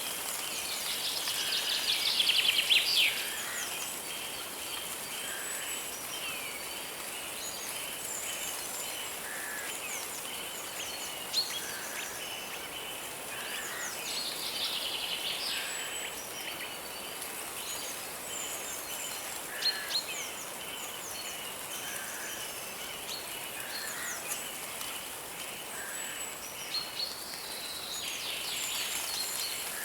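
Forest birds singing and calling over the steady rush of a river. Short chirps come about every two seconds, with bursts of rapid trilling song about a second in, around the middle and near the end, the first being the loudest.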